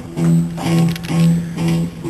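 Guitar playing a rhythmic repeated figure, strumming the same low chord about twice a second.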